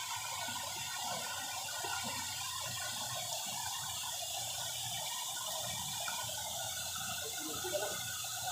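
Water spilling over a low concrete weir into a pool, a steady rush of falling water.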